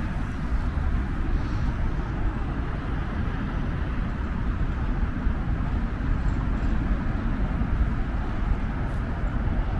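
Steady rumble of road traffic, a continuous low hum with an even hiss over it and no single vehicle standing out.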